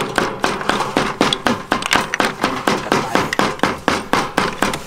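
Rapid, even knocking, about four or five sharp strikes a second, each with a short ring.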